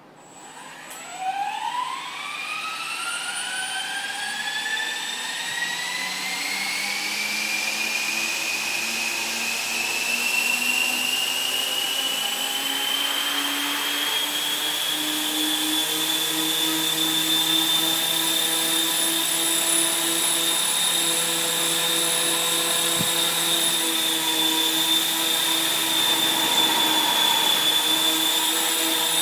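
Dynam E-Razor 450 electric RC helicopter's brushless motor and rotor spooling up: a whine that climbs steadily in pitch for about fifteen seconds, then holds at a steady high pitch.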